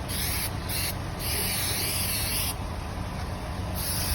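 Aerosol can of spray snow hissing in several short bursts, with one longer spray of about a second and a half in the middle, as fake snow is sprayed onto a truck.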